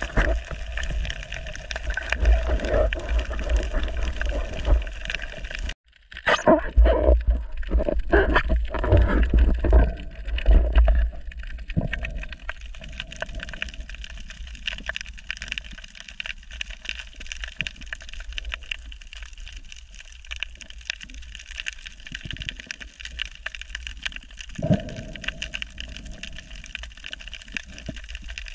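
Underwater noise picked up by a submerged camera: a steady crackling hiss. About six seconds in, after a brief dropout, loud low knocks and rumbles of handling and water movement come for about five seconds, with one more knock near the end.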